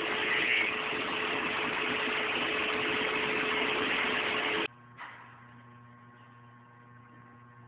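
Milling cutter cutting a keyway into a truck axle spindle: a steady, harsh cutting noise with a constant whine. It cuts off suddenly about two-thirds of the way through, leaving a much quieter low, steady hum.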